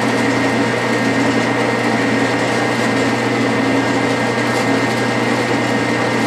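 Metal lathe running steadily in reverse under power feed, winding quarter-inch mild steel rod into a tight coil around a mandrel in the chuck. It makes a steady hum with a high whine over it.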